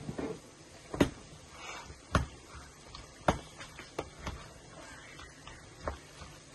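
Chickpea-and-potato chaat with yogurt being mixed by hand in a plastic tub, with soft rustling and sharp knocks of the tub roughly once a second.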